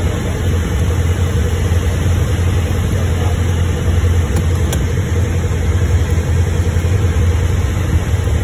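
Light airplane's piston engine and propeller running steadily, heard inside the cabin on final approach as a loud, low, even drone.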